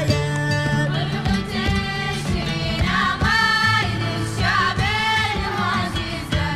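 Music with singing: long held sung notes, some wavering in pitch, over a steady accompaniment.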